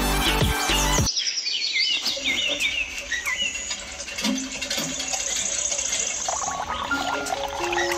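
Background music stops abruptly about a second in, giving way to birds chirping in short, repeated high calls over a faint outdoor background.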